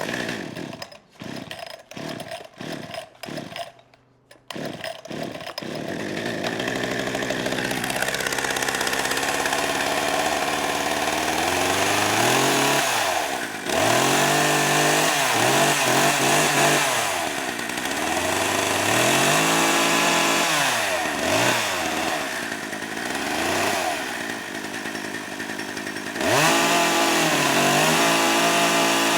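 Chainsaw engine: a run of short bursts with gaps for the first few seconds, then it runs and is revved up and down repeatedly, rising and falling in pitch, louder again near the end.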